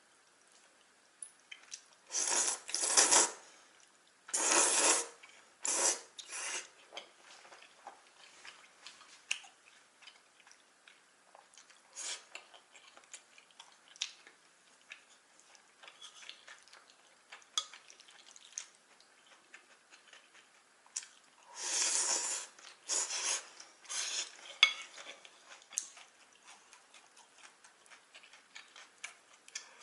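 Chopsticks and a bowl of jajangmyeon clattering and scraping as the noodles are stirred and handled. Scattered small clicks run through it, with a few louder noisy spells of about a second each, bunched near the start and again past the middle.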